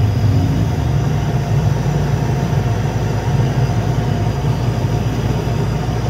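Display refrigerator's hermetic compressor running with a steady low hum, started with the manual cold control bypassed. That it runs this way shows the cold control (thermostat) is the faulty part.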